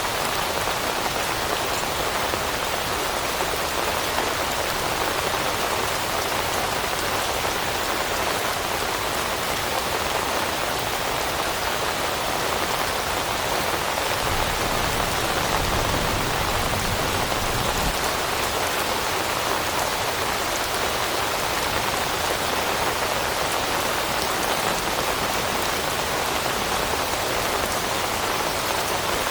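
Steady rain falling on leaves, an even wash of drops, with a brief low rumble about halfway through.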